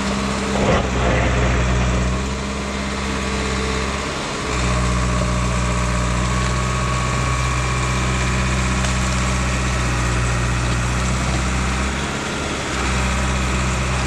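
1988 Caterpillar D4C crawler dozer's diesel engine running steadily while the machine works its blade against a tree's root ball. A brief crunch comes about a second in, and the engine's deep note eases twice, a few seconds in and near the end.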